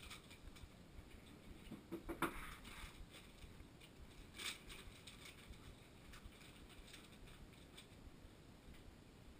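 Faint, irregular clicking and rustling from a GoPro camera mount worn by a dog as the resting dog shifts slightly. There is a louder short crackle with a brief squeak about two seconds in and another click about halfway through.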